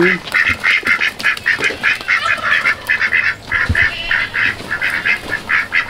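A flock of domestic ducks quacking nonstop, the quacks coming fast and overlapping at about five a second.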